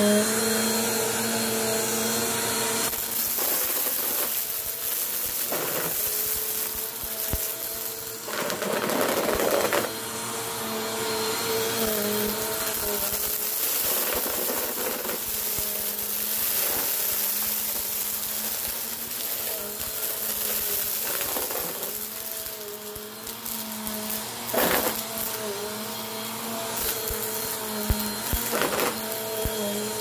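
Bissell PowerForce upright vacuum running with a steady motor whine as it is pushed over a rug, sucking up scattered dry flakes and small hard pieces that click and rattle up through the machine. There are a few brief louder rushes, about eight seconds in and again near the end.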